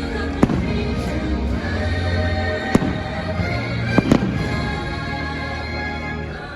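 Fireworks bursting with four sharp bangs: one about half a second in, one near the middle, and two close together at about four seconds. Steady show music plays throughout.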